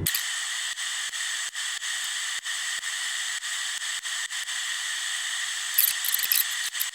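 A power tool cutting the corners off a circuit board: a steady high hiss, with brief harsher bursts near the end.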